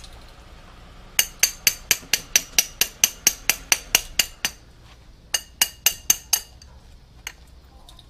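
Small hammer tapping a freshly cast silver bar to chip the glassy flux off it, sharp ringing metallic clinks at about four a second, a pause, then a shorter run and a single tap near the end.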